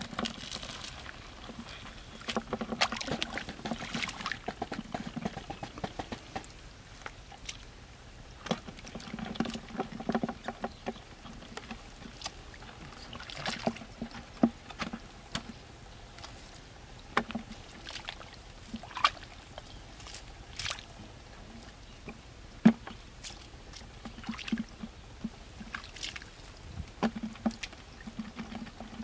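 Gloved hands splashing and squelching through a shallow muddy puddle, groping in the mud for catfish: irregular splashes and wet sharp clicks.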